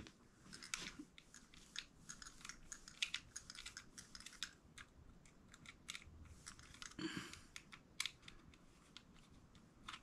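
Faint, irregular clicking and scraping of a small screwdriver turning out a screw in the metal lever handle of a smart door lock.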